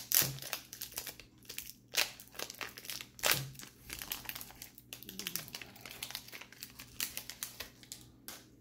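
Foil wrapper of a 1990-91 Skybox basketball card pack crinkling and tearing as it is pulled open by hand, a stiff pack that is hard to open. It makes a run of sharp crackles, loudest just after the start, about two seconds in and a little past three seconds.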